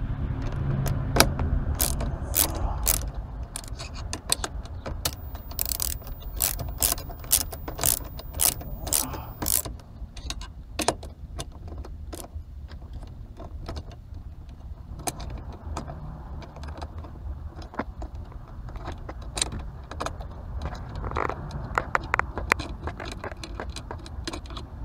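Screwdriver and self-tapping screw clicking and scraping on a car's metal steering-wheel frame as the freshly tapped screw is worked. A run of evenly spaced clicks, about two or three a second, comes in the middle.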